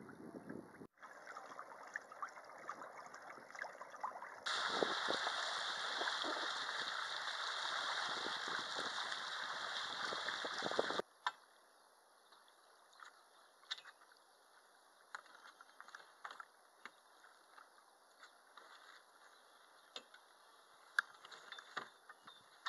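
Steady rushing of water and wind as a sailing proa moves under way, growing much louder about four seconds in, then stopping suddenly. After that comes quiet gentle water lapping in shallow water, with scattered light clicks and small splashes.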